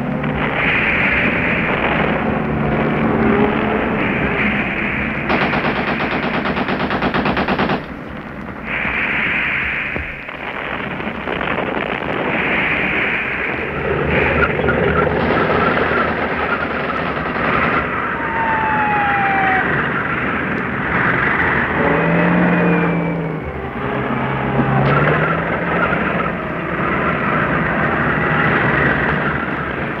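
Archival World War II battlefield recording of a tank battle: bursts of machine-gun fire and gunshots over a dense, continuous rumble. Two long stretches of rapid crackling fire come a few seconds in and again about halfway. A few falling whistles are heard, all with the dull, narrow sound of an old recording.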